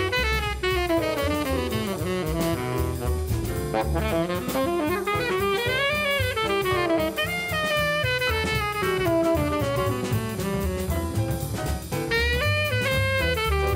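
Jazz instrumental background music: a melody line over drums and bass.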